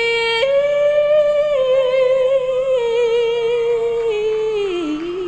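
Female solo voice holding a long, high sung note, stepping up in pitch about half a second in and easing down with vibrato near the end, with faint accompaniment behind it.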